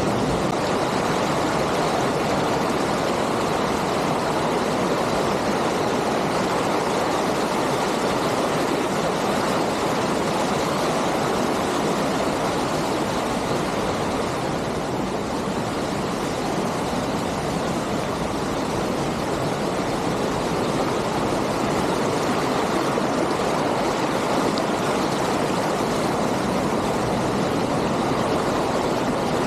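Waterfall of falling water rushing steadily, an unbroken even noise.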